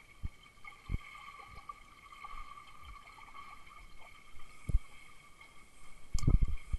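Muffled underwater sound picked up by a camera held below the surface: a few dull low thuds of water moving against it, with a louder cluster near the end, over a steady faint high whine.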